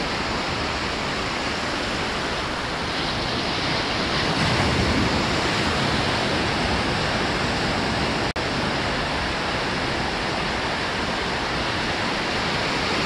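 Surf breaking and washing up over the sand at the water's edge, a steady rush of sea noise, broken by a split-second gap about eight seconds in.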